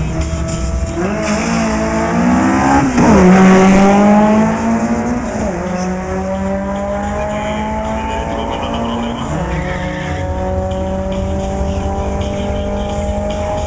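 Naturally aspirated Nissan Neo VVL four-cylinder in a B11 Sentra drag car launching and running at full throttle. The engine note climbs through each gear and drops sharply at the upshifts, about three, five and a half and nine seconds in. It is loudest just after the first shift.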